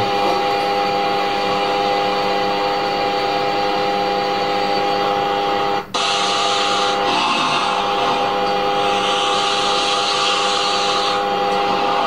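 A steady machine-like hum holding a few fixed tones over a rushing noise, broken by a brief dropout about six seconds in.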